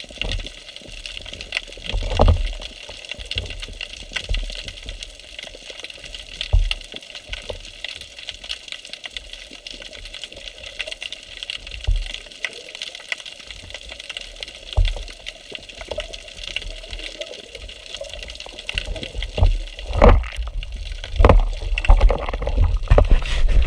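Underwater ambience picked up by a diver's camera: a steady hiss with fine crackling and irregular low thuds of water moving against the housing. The thuds come more often in the last few seconds.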